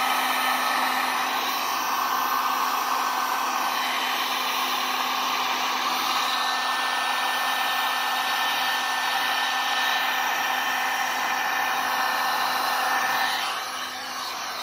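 Handheld electric heat gun running steadily, its fan blowing hot air with a steady motor whine, used to heat out stress marks in ATV plastic. The sound drops in level near the end.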